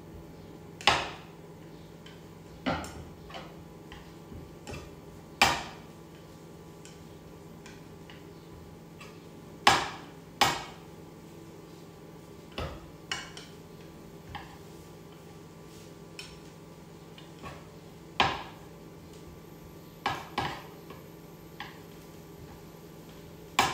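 A cooking utensil clacking against a frying pan while shredded pork floss is stirred: sharp, irregular knocks a second to several seconds apart, over a faint steady hum.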